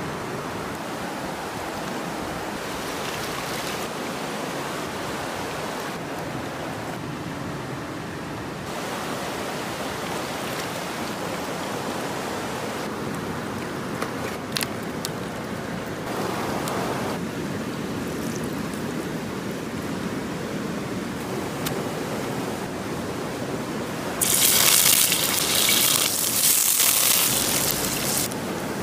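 Stream water running steadily over rocks, a constant rushing hiss. About 24 seconds in, a loud, bright sizzle takes over as small fish fry in hot oil in a wok.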